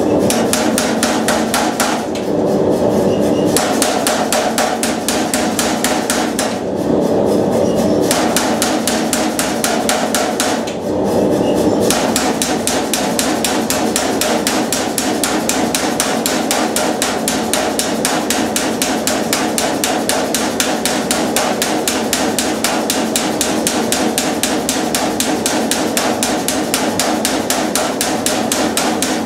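Mechanical power hammer pounding a red-hot iron bar between its dies in rapid, steady blows, drawing out the hot iron. It stops briefly three times in the first twelve seconds, then runs on without a break.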